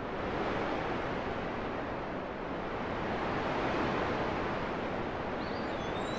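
Steady rushing wash of sea surf, swelling slightly and easing, with a few faint high chirps near the end.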